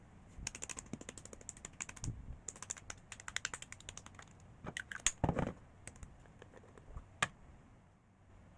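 Typing on a computer keyboard: runs of rapid key clicks for the first few seconds, then a few louder knocks about five seconds in and a single click near the end.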